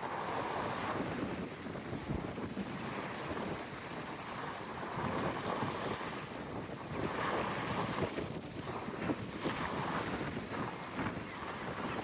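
Wind buffeting the microphone over the rush of sea water, rising and falling in gusts.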